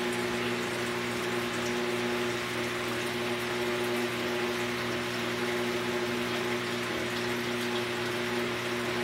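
Saltwater aquarium pumps humming steadily over the hiss of circulating water, with a few faint ticks.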